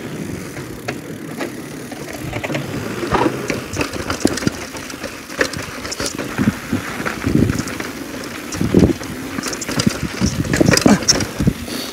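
Downhill mountain bike rolling over a wooden bridge and then rough rocky trail: tyre rumble with frequent knocks and clatter from the bike's impacts, busiest and loudest in the second half.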